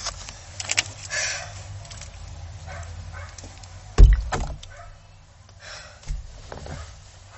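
Handling noises inside a car: clicks and a short rustle as a plastic water bottle is passed over, then one heavy thump about four seconds in and a lighter knock about two seconds later.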